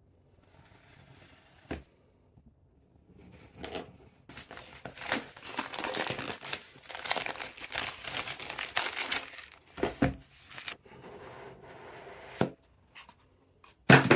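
Speedcube packaging being torn open and crinkled, a dense rustling tear through the middle of the stretch, with a few short knocks as the box is handled.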